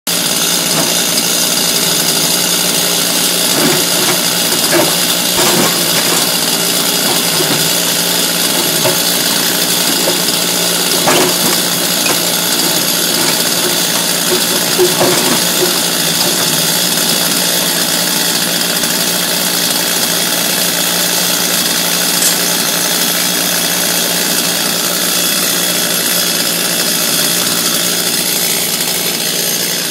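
Motor-driven equipment running steadily, with a few sharp knocks in the first half.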